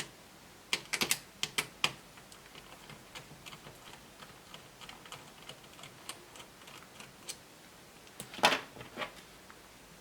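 Light clicks and taps of small plastic and metal laptop parts being handled while a hinge screw is undone: a quick cluster of sharp clicks about a second in, scattered faint ticks, and a louder clatter near the end.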